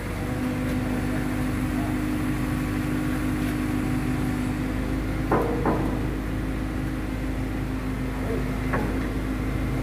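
Sumitomo SH75 mini excavator running, with a steady hydraulic whine that starts about half a second in as the arm is worked to fit the breaker. Three short knocks sound over it: two close together about five seconds in and one about a second before the end.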